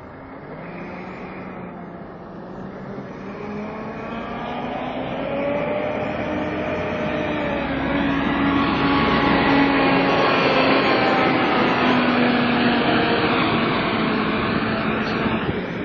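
Volvo B7TL double-decker bus pulling through, its engine and the whining 'hoover' noise the type is known for growing louder as it nears and fading near the end, with several whining tones gliding up and down in pitch.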